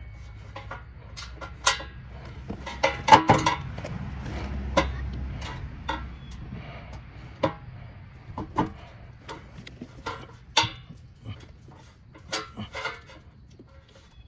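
Metal pry tool clicking and knocking against a steel bumper reinforcement and a plastic sensor clip as an ambient air temperature sensor is wiggled out of its mount. The sharp clicks and taps come at scattered moments, loudest about three seconds in and again about ten seconds in.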